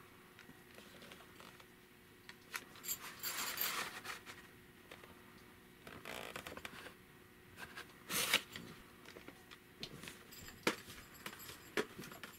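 A plastic VHS cassette and its cardboard sleeve being handled: the cassette slid out of and back into the sleeve, with soft scrapes and rustles and a few light clicks, the sharpest click a little after 8 seconds in.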